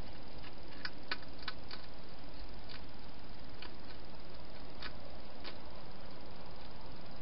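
Hedgehog eating at a food bowl: about a dozen sharp, irregular crunching clicks, most in the first two seconds and a few more up to about five and a half seconds in, over a steady hiss.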